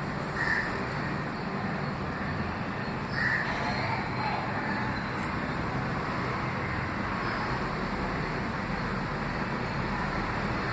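Steady background hum of distant road traffic, with two short bird calls, crow caws, about half a second and three seconds in.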